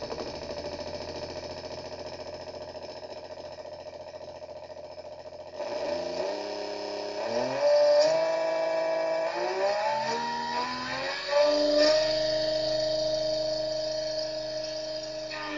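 Briggs & Stratton Etek brushless motor spinning under a Kelly KBL72301 BLDC controller, giving a steady electric whine. About a third of the way in, the whine climbs in pitch in several steps as the speed is raised. It jumps up again a few seconds later and holds, easing down a little near the end.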